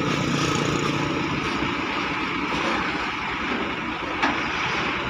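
Excavator engine running steadily, with a single sharp knock about four seconds in.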